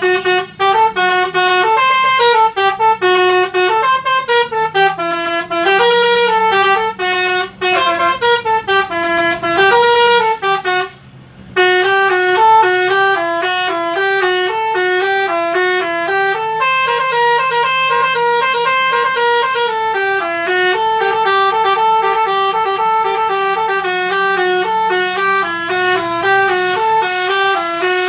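Telolet basuri horn playing a tune: a string of loud, stepping horn notes, with one short break about eleven seconds in before the melody carries on.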